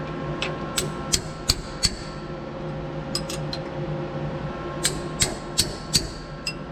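Sharp metal clinks in three quick clusters, with a short ringing after each, as the jaws of a CNC lathe's power chuck are handled and adjusted on their serrations. A steady machine hum runs underneath.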